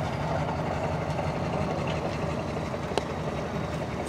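Three-axle off-road trial truck's diesel engine running steadily as the truck crawls at walking pace over a steep dirt mound. There is a single sharp click about three seconds in.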